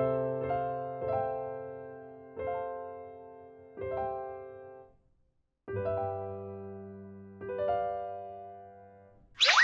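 Soft electric piano music: gentle chords struck one after another, each ringing and fading, with a short pause about halfway through.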